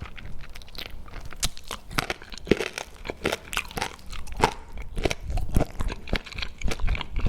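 Close-miked eating sounds: a person biting and chewing cola chicken wings, a dense run of irregular crunches and clicks.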